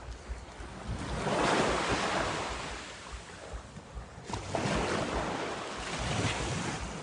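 Sea waves washing onto the shore, the surf swelling up twice about three seconds apart, with wind buffeting the microphone.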